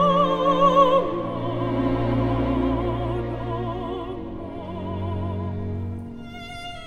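Operatic soprano singing with wide vibrato, loudest on a held high note in the first second, accompanied by a string orchestra whose cellos and double bass sustain low notes beneath.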